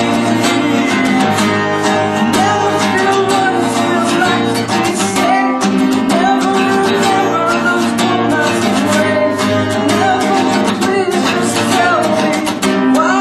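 Man singing over a strummed acoustic guitar, a cheap guitar on old, worn strings.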